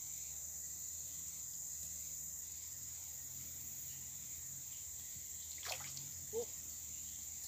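Steady high-pitched drone of forest insects, crickets and cicadas. Two brief sounds come just before and after six seconds in; the second is a short low chirp and the loudest moment.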